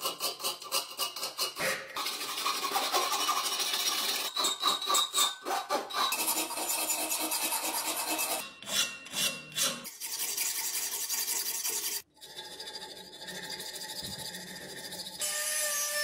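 A steel hand file rasping across a steel wrench clamped in a vise, in runs of quick back-and-forth strokes alternating with longer steady scraping strokes. The sound breaks off abruptly several times. In the last few seconds it becomes a steadier scrape with a thin whine.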